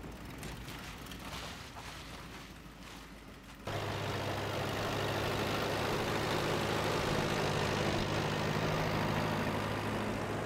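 A vehicle engine running steadily at a constant speed. It comes in suddenly and louder about four seconds in, after a few seconds of quieter, even noise.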